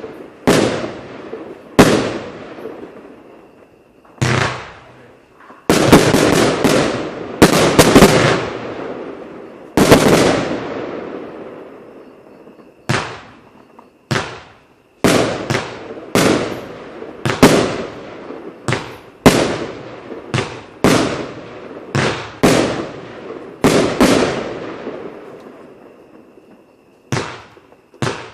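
25 mm fireworks cake firing shot after shot: a long series of sharp reports, each ringing out and fading over a second or so. Some come in quick runs of several shots, then settle into a steady pace of about one a second.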